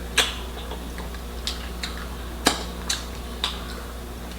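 Eating at the table: about six light clicks and clinks, like dishes or utensils being touched, spaced unevenly over a faint steady hum.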